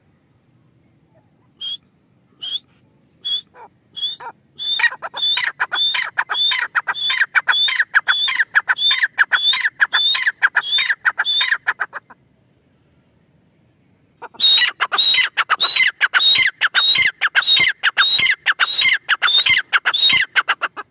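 Grey francolin calling: a few spaced notes that quicken into a fast, loud run of repeated ringing calls, then, after a pause of about two seconds, a second fast run.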